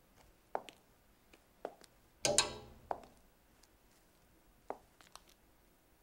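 Slow footsteps on a hard shop floor, one sharp step about every second. About two seconds in there is a louder rustling rattle.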